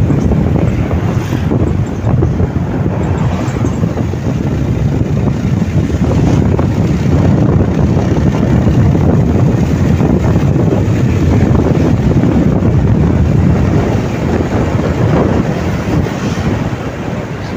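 Heavy wind noise buffeting the microphone on a moving motorcycle, with the bike's running noise underneath.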